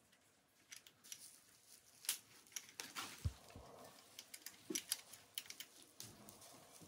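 Small metallic clicks and taps of an Allen key working the faceplate bolts of a bicycle handlebar stem, irregular and light, with a dull knock about three seconds in.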